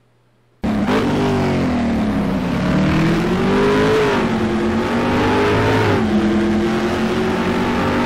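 A car engine accelerating hard through the gears, starting abruptly about half a second in; its pitch climbs and then falls back sharply twice, about four and six seconds in.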